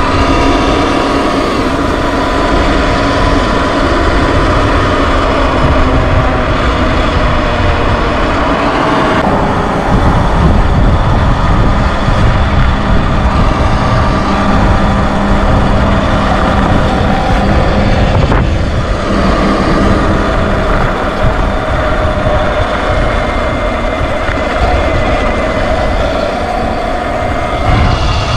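Sur Ron X electric dirt bike riding along a gravel road shoulder. Wind buffets the microphone over the whine of its electric motor, whose pitch drifts up and down with speed, along with tyre noise.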